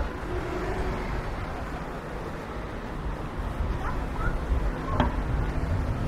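City street ambience: a steady low rumble of traffic with a few faint voices and a single sharp click about five seconds in.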